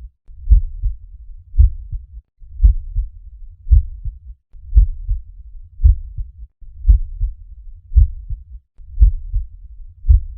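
Normal human heart sounds, a regular lub-dub rhythm of a little under one beat per second. Each beat is a strong low thump followed closely by a softer one: the first and second heart sounds.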